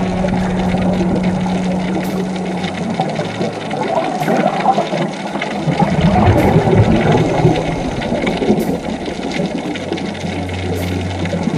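Muffled underwater noise picked up by an action camera in its housing: a steady churning drone mixed with the bubbling of divers' exhaled air from their scuba regulators.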